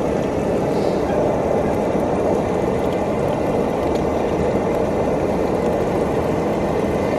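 Portable gas camping stove burner running at a steady, even rush under a pan of soup.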